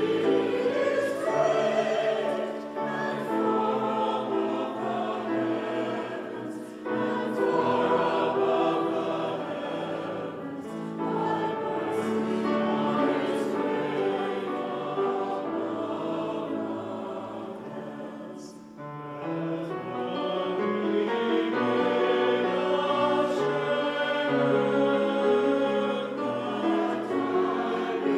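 Mixed church choir singing a choral anthem in sustained phrases, with piano accompaniment. The sound thins out briefly between phrases about two-thirds of the way through, then the full choir comes back in.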